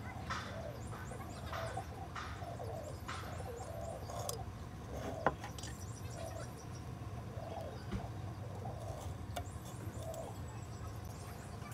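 Birds calling in the background: repeated short calls with thin high chirps over a steady low hum. Over them come a few light scratches of a pencil marking a wooden block and a sharp tap about five seconds in, as a steel ruler and square are handled.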